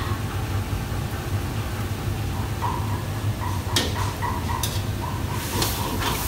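Gas wok range running with a steady low roar, a metal ladle clinking sharply against a wok twice past the middle, and a sizzling hiss of food frying that swells near the end as a wok is stirred over the flame.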